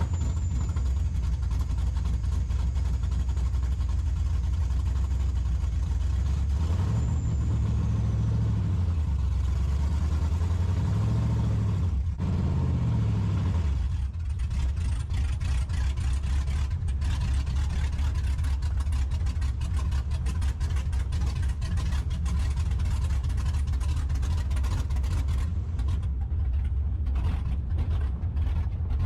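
Second-generation Chevrolet Camaro's engine running on a test drive. Its revs rise and fall twice between about seven and thirteen seconds in, then it runs steadily.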